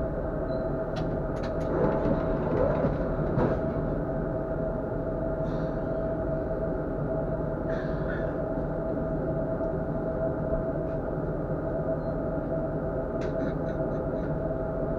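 Tatra KT4D tram running along the track, heard from the driver's cab: steady running noise with a constant whine. Sharp clicks now and then, and a quick run of about five clicks near the end.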